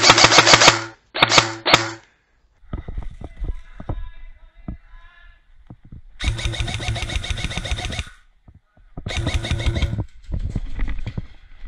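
Airsoft rifle firing rapid full-auto bursts: two short bursts at the start, then a longer burst of about two seconds and a shorter one a second later, sprayed as suppressive fire at an unseen opponent.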